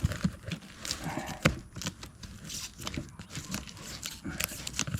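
Camera being picked up and moved by hand: irregular rustling, scraping and small knocks of handling noise on its microphone.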